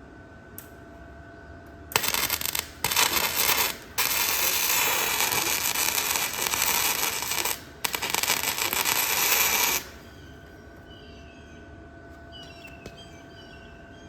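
Electric welding arc crackling and sizzling in four runs of a second to a few seconds each, with brief breaks between beads, as a trailer jack is welded onto a steel wagon frame.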